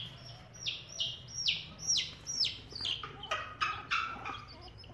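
Baby chick peeping: a run of short, high peeps, each falling in pitch, about two or three a second.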